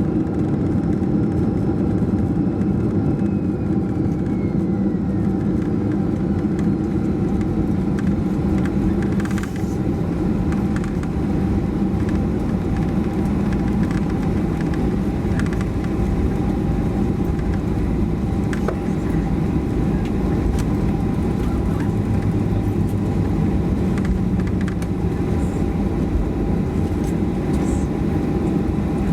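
Cabin noise inside a Boeing 737-400: the steady drone of its CFM56 turbofan engines over a dense low rumble, with a couple of steady whine tones.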